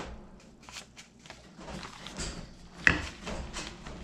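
Paper rustling and sliding as a paper pattern and a sheet of graphite paper are handled over a wooden board, with a sharp knock about three seconds in.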